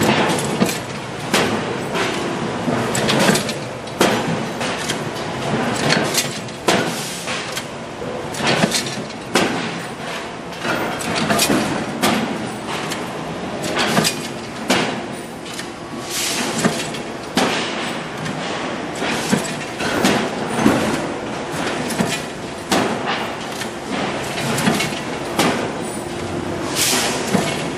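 Factory noise from stainless steel kitchen sink production: repeated metallic bangs and clanks every second or so from a mechanical press and pressed stainless sink bowls being handled and stacked, over a steady din.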